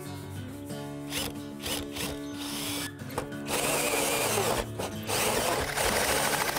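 Porter-Cable drill spinning a 6-inch hole saw in reverse against aluminum siding: the motor runs in short spurts at first. About three and a half seconds in, a loud steady scraping begins as the saw's teeth grind on the siding. Reversing keeps the aggressive saw from catching and tearing the siding.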